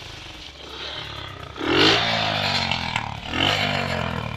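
Bajaj Platina motorcycle's single-cylinder engine idling, heard at the exhaust silencer, blipped twice with the throttle, about one and a half and three and a half seconds in, the revs falling back after each. The air filter cover has been taken off to make the bike sound louder.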